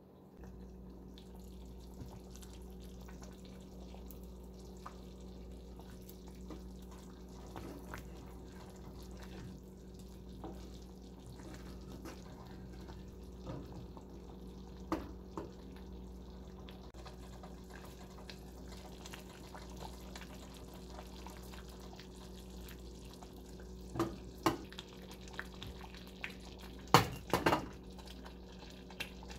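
Thick stew simmering in a saucepan, bubbling with scattered small pops over a steady low hum. Near the end a glass pot lid clinks against the pan a few times.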